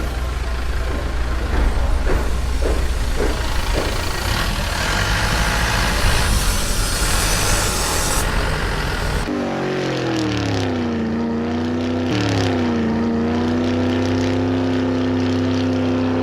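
Cartoon truck sound effects: a heavy engine rumbling with hiss for several seconds, then an engine tone that drops in pitch and settles, rises and drops again, and holds steady.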